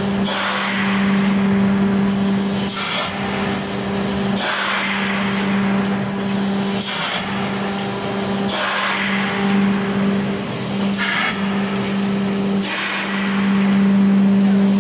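Automatic paper-pulp egg tray forming machine running: a steady machine hum with bursts of air hissing every couple of seconds as the forming molds cycle.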